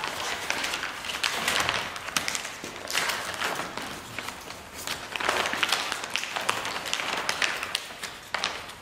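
Stiff fabric covering skin of an ultralight's vertical stabilizer rustling and crinkling as it is lifted and handled on its tube frame, with scattered light taps and clicks.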